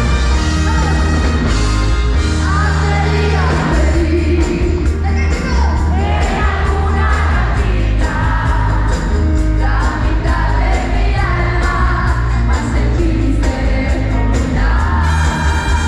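Live pop-rock band with a woman singing lead over a steady drum beat and heavy bass, loud and continuous.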